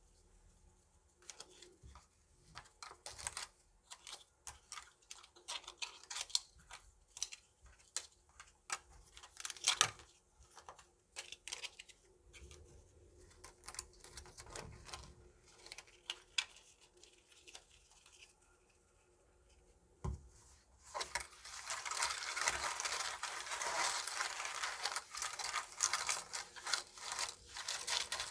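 Hwatu (small stiff Korean flower cards) being handled and snapped down one by one, sharp separate clicks and slaps at an uneven pace. After a brief lull about three-quarters through, the cards make a dense, continuous fast clatter.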